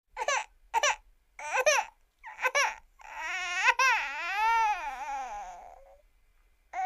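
Cartoon character's voice crying: four short sobs, then one long wail that rises and falls in pitch for nearly three seconds and trails off, and another sob at the end.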